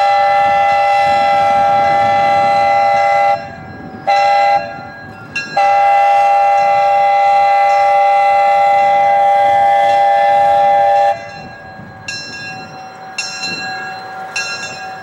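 Buckeye three-chime steam locomotive whistle blowing a chord in three blasts: a long one, a short one about four seconds in, then a longer one of about five seconds. Fainter, shorter sounds of the same chord follow near the end.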